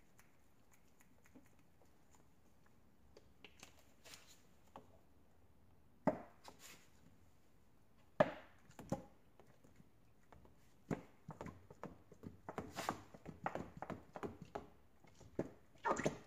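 Plastic squeeze bottle of thin acrylic paint being squeezed and poured, with scattered sharp clicks and soft knocks that come thicker in the last few seconds.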